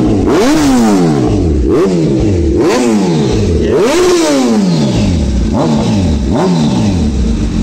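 Sport motorcycle with a short aftermarket slip-on exhaust being revved in repeated throttle blips, about one a second, each rising sharply in pitch and falling back toward idle.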